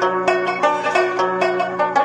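Background music: a fast plucked-string tune, banjo-like, with several notes a second over a steady low drone.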